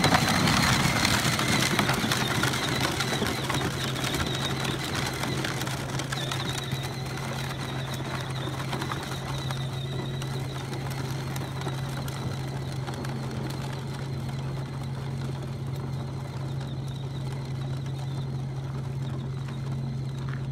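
Peg-Perego Polaris electric ride-on quad driving away over gravel: a thin motor-and-gearbox whine and the crunch of its plastic wheels on the stones, loudest at first and fading over the first several seconds as it pulls away. A steady low hum runs underneath.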